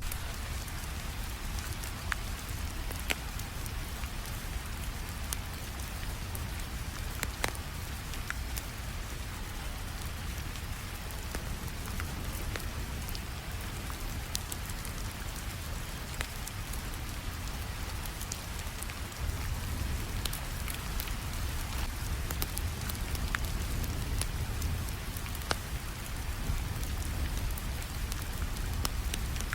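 Steady rainfall over a wood fire, with sharp crackles from the fire popping out irregularly over the even hiss of the rain and a low rumble. The whole mix grows slightly louder a little under two-thirds of the way through.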